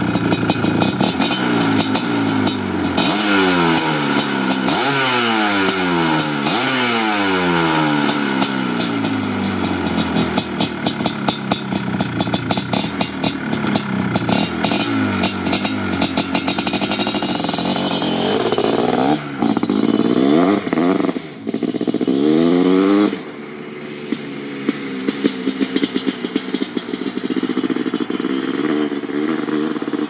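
Suzuki LT500R's 500cc single-cylinder two-stroke engine with an FMF Fatty expansion-chamber pipe, revved again and again at standstill, its pitch climbing and falling with each throttle blip over a crackling exhaust. About 23 seconds in it drops to a quieter, steadier note as the quad rides away.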